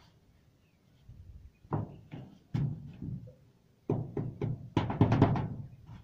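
A hand tool knocking and scraping on roof tiles in irregular strokes, with a quicker, louder run of scraping about five seconds in.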